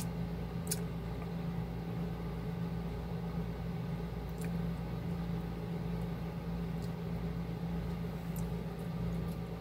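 Steady low machine hum with a deeper rumble beneath it, with a few faint clicks.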